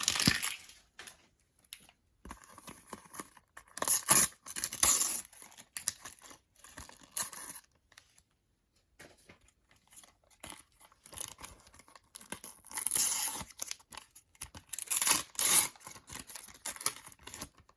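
Panini sticker packets being torn open and crinkled by hand, in irregular bursts with short pauses between them.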